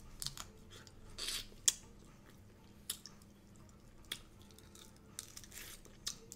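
Quiet close-up eating sounds: lips smacking on the fingers, then the soft clicks and crackles of a cooked shrimp's shell being peeled by hand.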